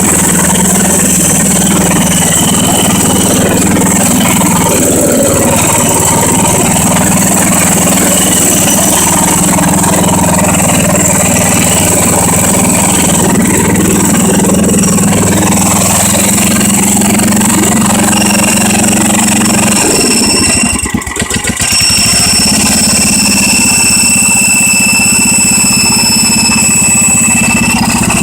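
A garden tractor's 10 hp Tecumseh engine running steadily on its newly replaced carburetor. Its sound dips briefly about two-thirds of the way through, then goes on steadily.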